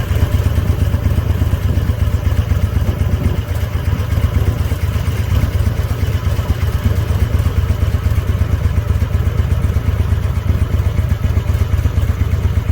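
Motorcycle engine running steadily close by, a loud, fast, low pulsing that holds even throughout.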